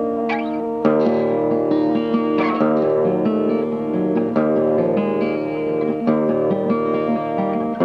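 Tanglewood dreadnought acoustic guitar playing chords that ring on between fresh attacks every second or so, recorded on a dictaphone.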